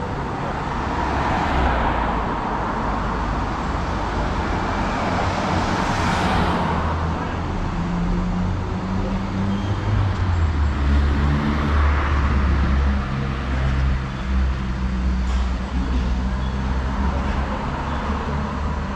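Street traffic: cars passing one after another, each swelling and fading, over a low engine rumble that grows stronger about halfway through.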